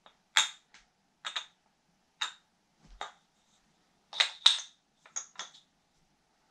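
Short, sharp wooden clicks and taps from a kendama being handled, the ball and wooden ken knocking together. About a dozen irregular clicks, with a louder pair about four seconds in.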